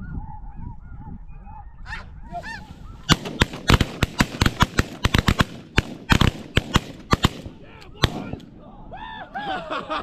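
Snow goose calls from a circling flock, then a rapid volley of many shotgun shots from several hunters firing together, lasting about four seconds. One last shot follows about a second later, and the goose calls carry on near the end.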